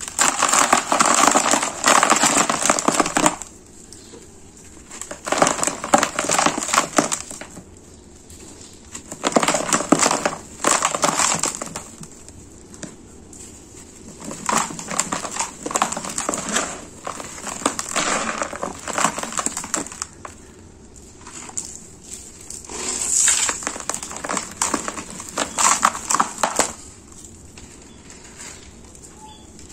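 Gloved hands squeezing and crumbling clumps of sand-cement mix in a basin, making a gritty crunching that comes in separate bursts of one to three seconds with short lulls between them.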